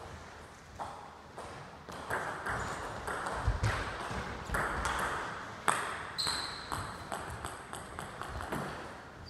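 Table tennis rally: the ball clicking off the paddles and table in quick succession. There is a sharp hit just before six seconds in and a short high squeak just after.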